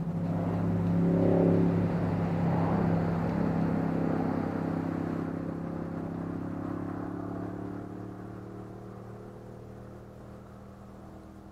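A passing motor vehicle's engine hum. It swells to its loudest about a second and a half in, then fades away slowly.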